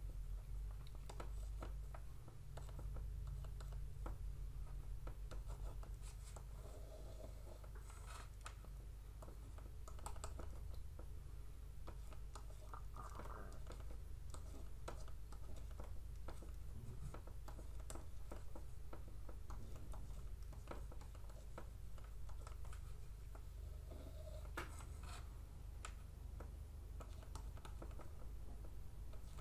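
Faint scratching and irregular small taps of a stylus writing on a pen tablet, over a steady low hum.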